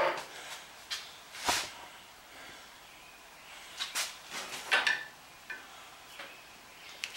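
Screwdriver knocking and scraping against a 14-inch wood bandsaw's wheel as the old tire is pried off the rim: a sharp knock about a second and a half in, then a cluster of clicks and scrapes about four to five seconds in.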